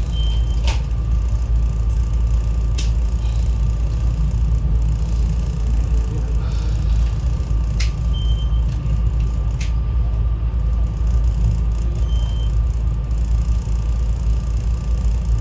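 Steady low rumble inside a moving SEPTA regional rail train car, with a few sharp clicks and rattles. Three short high beeps sound over it, near the start, about eight seconds in and about twelve seconds in.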